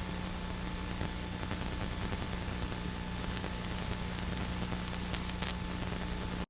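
Steady static hiss with a low steady hum underneath and a few faint ticks in the second half; it cuts off abruptly at the end.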